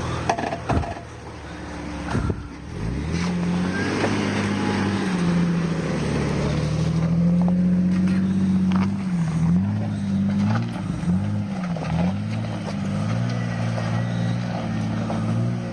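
Off-road vehicle's engine revving up about three seconds in and pulling steadily. Its pitch dips and climbs back several times in quick succession past the middle, as the throttle comes on and off. A few knocks come before the engine picks up.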